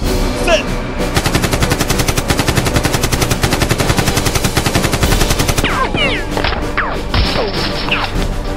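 Long burst of rapid automatic gunfire, a machine-gun sound effect, starting about a second in and lasting about four and a half seconds, over background music.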